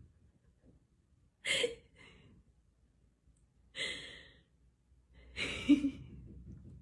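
Three breathy exhalations like sighs, spaced about two seconds apart; the last one ends with a short low voiced note.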